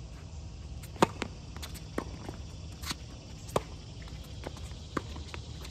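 Tennis ball struck by rackets in a rally: the serve cracks loudest about a second in, then returns follow roughly every second and a half. Quieter footsteps and shoe scuffs on the hard court come in between.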